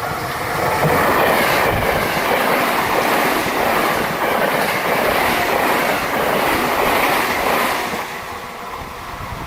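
A train passing close at speed, its wheels clattering over the rail joints; the noise builds about a second in and eases off near the end.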